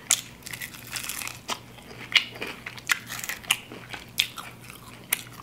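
Crispy fried chicken wing being bitten, chewed and pulled apart by hand: irregular sharp crunches and crackles of the fried breading.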